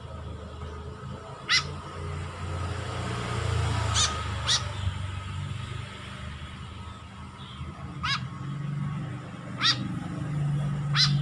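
White-breasted woodswallow (kekep babi) chick giving short, sharp begging calls, each a quick sweep rising in pitch, six times at irregular intervals over a low background rumble.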